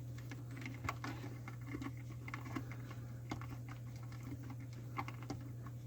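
Light, scattered clicks and rustles of hands working electrical wires and twist-on wire connectors, over a steady low hum.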